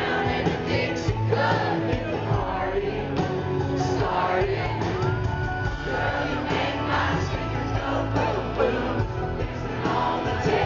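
Live country band playing a song in concert, with singing and the crowd cheering along.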